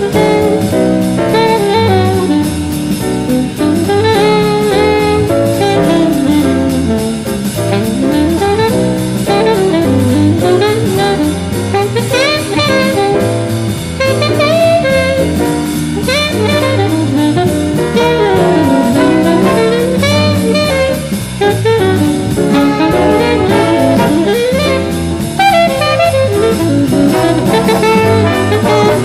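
Big-band jazz: saxophone and brass playing fast melodic runs over a steadily swinging drum kit.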